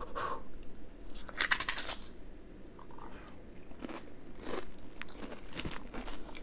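A person bites into a dip-loaded Zapp's Hotter 'N Jalapeño kettle-style potato chip with one loud crunch about one and a half seconds in, then chews it with softer, scattered crunches.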